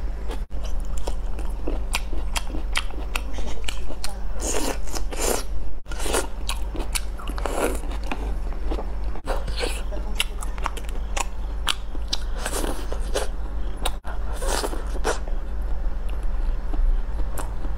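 Close-miked chewing and biting of food from a spicy self-heating hot pot, with crunches and wet mouth sounds in clusters. A steady low hum runs underneath.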